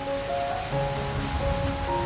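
Background instrumental music: a slow melody of held notes changing about every half second, over a steady hiss.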